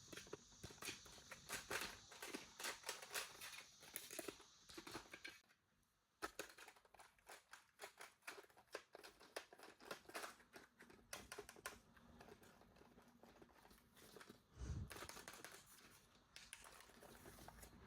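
Toy packaging being handled and opened: many quick clicks and crinkling rustles of plastic and cardboard, with a short pause about six seconds in and a couple of soft thuds near the end.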